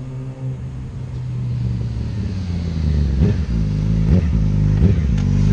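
2016 Yamaha R6's 600cc inline-four running through a Graves full exhaust system as the bike rides up the street, getting steadily louder as it approaches. In the second half the pitch drops and climbs quickly three times as the throttle is worked.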